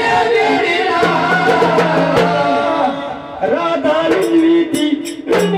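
Marathi folk song sung by a waghya-murali jagran-gondhal troupe: voices singing with instrumental accompaniment, a steady drone coming in about a second in, and percussion strokes near the end.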